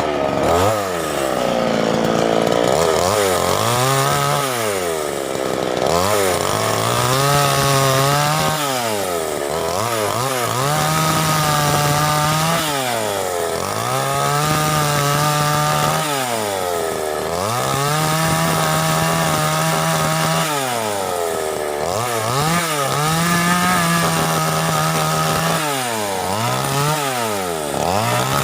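Two-stroke chainsaw engine revved up and held at high speed for a second or more at a time, then let drop back toward idle, about eight times over.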